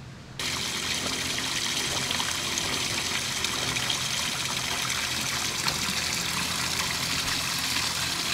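Water from a stone fountain spout pouring steadily and splashing into a shallow pool. The sound starts abruptly about half a second in.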